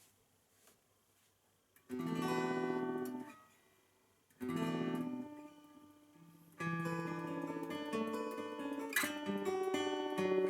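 Morris W-100D steel-string acoustic guitar played with a thumb pick and finger picks. After about two seconds of quiet, two chords are struck a couple of seconds apart and each left to ring out. Steady fingerpicked playing begins about six and a half seconds in.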